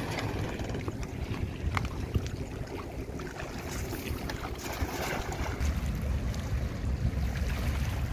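Steady low wind noise on the microphone, with a few short clicks about two seconds in.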